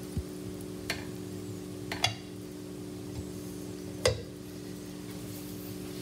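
Light clicks and knocks over a steady low hum and faint hiss, the loudest clack about four seconds in, as a 1/3-scale model toilet's seat and lid are lowered.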